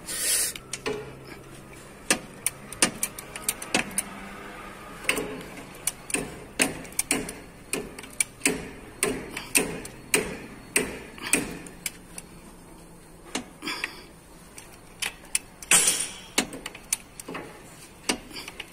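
Socket ratchet clicking in short, repeated strokes as a bolt is tightened, often about two clicks a second, with louder metal clanks of tools just after the start and about 16 seconds in.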